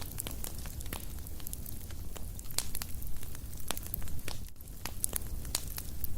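Fire crackling: irregular sharp pops and snaps over a low steady rumble.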